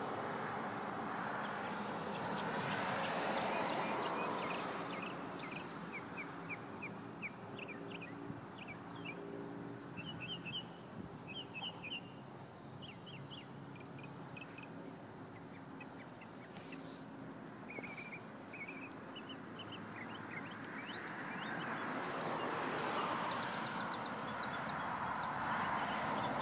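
Wind rushing on the microphone, loudest at the start and again near the end. Through the middle comes a long run of short, high chirping calls, several a second, from an animal.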